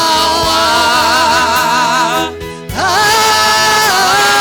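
Swahili gospel worship song: a voice sings long held notes with vibrato over instrumental backing. About halfway there is a brief break, then a new note slides up and is held.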